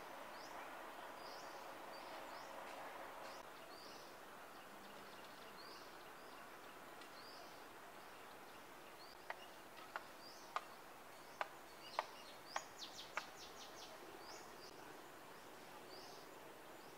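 Faint outdoor ambience with a small bird's short high chirp repeated about once a second. In the second half comes a run of about eight sharp knocks, irregularly spaced, with a brief high trill among them.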